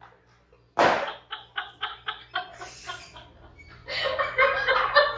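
Laughter in short, rhythmic bursts of about four a second, starting about a second in and growing denser near the end.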